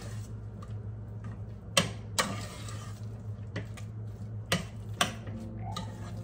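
Metal spoon stirring grated potatoes in a stainless steel saucepan, scraping and knocking against the pan in a few irregular sharp clinks, over a steady low hum.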